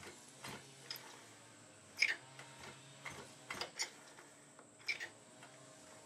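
Scattered light clicks from the recoil pull-starter of a Chung Yang 29cc two-stroke engine on a 1/5-scale RC truck as the cord is eased out by hand, the engine not yet running. There are about seven clicks, unevenly spaced.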